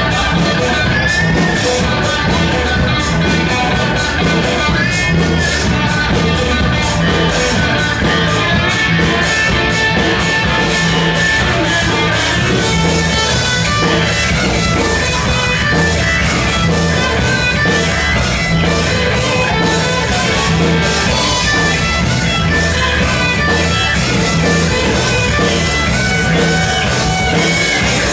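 Live rock band playing an instrumental passage: electric guitar lead line with sustained, bending notes over bass guitar and a drum kit keeping a steady beat, played loud.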